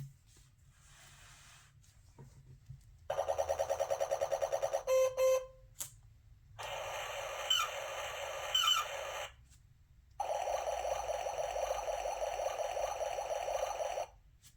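Three electronic sound effects played one after another through the tinny speaker of a children's button sound book. The first is a fast pulsing warble ending in two short tones, the second is hissy with chirps in it, and the third is a steady buzzing sound.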